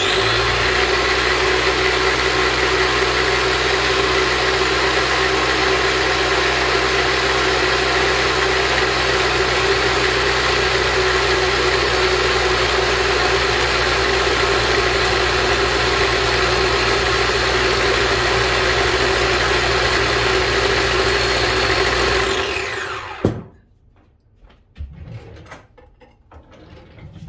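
Ninja food processor motor running at a steady high speed, blending garlic scapes, herbs and oil into pesto. About 22 seconds in it switches off and whirs down to a stop.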